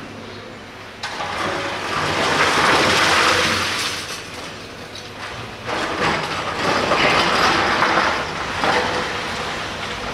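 Long-reach demolition excavator working on a concrete building: a steady engine hum under two long stretches of crunching, crumbling noise as the hydraulic attachment breaks concrete away, about one to four seconds in and again from about six to nine seconds.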